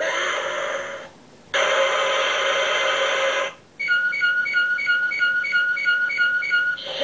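An Ultraman action figure's built-in electronic sound effects playing through its small speaker. Two hissing, beam-like blasts cut off sharply, then a rapid run of pulsing high beeps at about three to four a second, and another hissing blast starts near the end.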